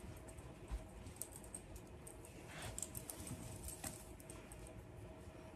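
Faint rustling and scattered light ticks from a knit cardigan being handled and pulled on, busiest around the middle.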